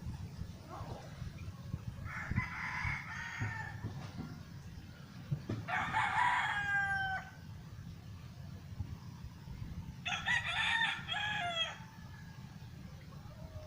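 A rooster crowing three times, each crow lasting about a second, over a steady low rumble.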